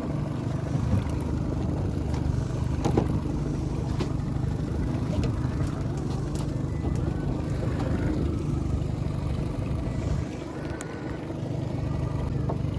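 A small fishing boat's engine running steadily with a low drone, and a few light knocks.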